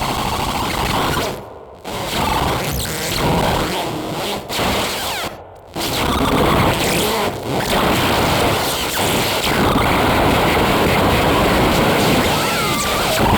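Dense, rough noise that cuts out abruptly twice, about a second and a half in and again about five and a half seconds in, then runs on steadily, with a few faint short whistling glides near the end: an edited noise composition.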